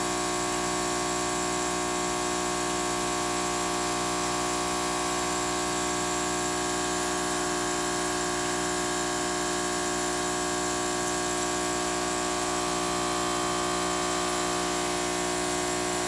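Steady electric motor hum of an aquarium pump, a buzz of several fixed tones over a faint hiss that does not change.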